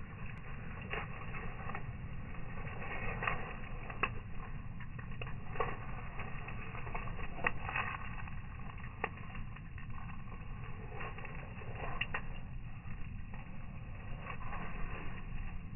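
Wood fire burning in a metal fire pit, crackling with scattered sharp pops about once a second over a steady low rumble.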